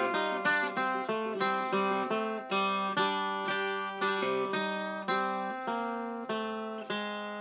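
Old Regal tenor guitar, a four-string acoustic, picked fingerstyle in open tuning: a steady run of plucked notes, about two a second, each ringing and fading over a sustained bass note.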